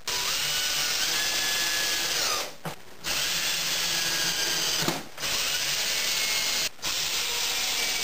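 DeWalt cordless drill running into the plywood top of a box in four spells with short pauses between, its motor whine sagging in pitch near the end of a run as it bears down.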